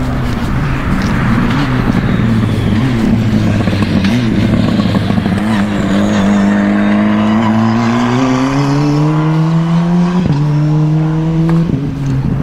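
Formula 4 race car engine accelerating hard past trackside, its pitch climbing steadily. It drops sharply twice near the end as the driver shifts up through the gears.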